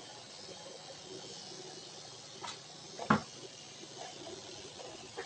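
A sharp knock about three seconds in, with a lighter click just before it and another near the end, over a faint steady hiss. These are handling knocks during hand grooming of a dog.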